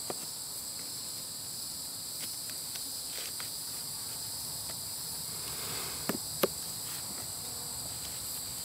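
A steady, high insect chorus, with a few faint taps and two sharper clicks about six seconds in from a metal hive tool prying at the wooden frames of a beehive box.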